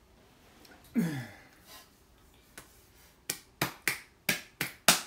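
A man's short groan falling in pitch about a second in, then a quick run of about eight sharp clicks from his hands, a few tenths of a second apart.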